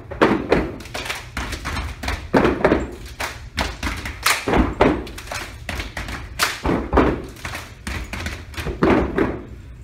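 Dancers' feet stepping and stomping on a carpeted floor: a quick, uneven series of thumps and taps.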